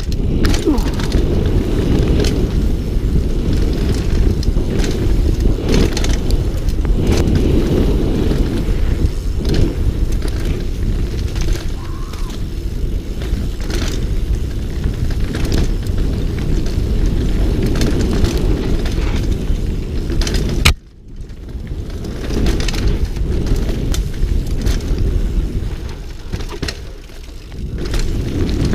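Wind rushing over a helmet-mounted camera's microphone during a fast downhill mountain-bike descent, with tyres on dirt and frequent knocks and rattles from the bike over rough ground. A sharp knock about two-thirds of the way through is followed by a brief lull.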